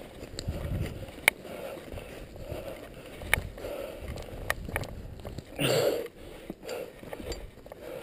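Mountain bike rolling slowly over rocky ground, with scattered sharp clicks and knocks from the bike and a low rumble. A short loud rush of noise comes about six seconds in.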